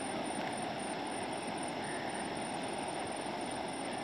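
Steady rush of a flash-flooded stream's fast-flowing muddy water.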